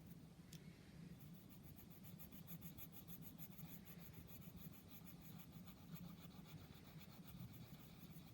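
Faint scratching of a drawing tool on paper in quick, even back-and-forth colouring strokes, several a second, beginning about a second in, with a single click just before.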